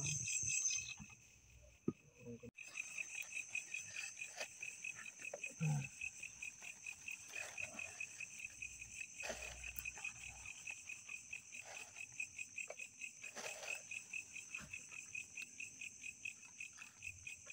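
Night insects chirping steadily in a rapid pulsing trill. The trill drops out briefly about a second in, and a few faint clicks and knocks sound over it.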